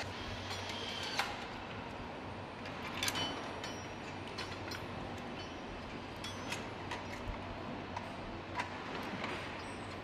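Factory-floor ambience: a steady low hum with scattered light metallic clicks and clinks from work at an engine hanging on a hoist chain.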